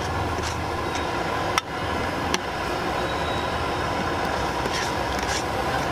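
Metal spoon scraping and stirring a thick tomato-and-onion sauté against the bottom and sides of an aluminium pot, in short strokes about every half second, with a sharp knock about a second and a half in. Under it runs a steady rumbling background noise.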